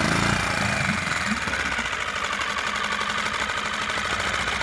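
Lehr propane outboard motor running just after a pull start: its pitch shifts for the first second or so as it settles, then it runs at a steady idle. The owner has been unable to make this motor idle without stalling, and says a new carburetor has not cured it.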